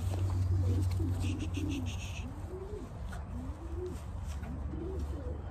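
Racing pigeons cooing, a string of rising-and-falling coos one after another, over a steady low hum. About a second in there is a quick run of light ticks.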